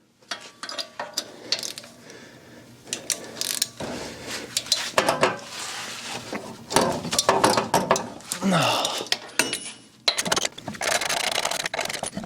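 Rapid clicking of a socket wrench ratchet and the clink and clatter of metal tools, as the brake caliper bolts are loosened and taken out.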